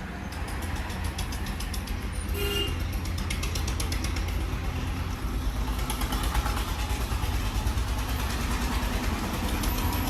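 Steady low rumble and hiss of background road traffic, with a short pitched tone about two and a half seconds in.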